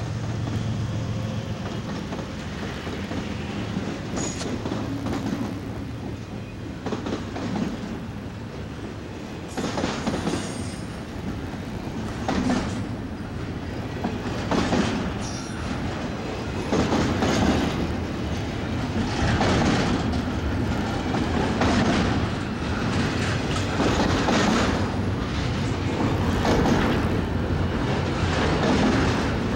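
A long freight train of double-stack container cars rolls past close by, its wheels clattering over the rails in loud surges about every two and a half seconds, with a few brief high wheel squeals. At the start the low rumble of the trailing diesel locomotives fades away.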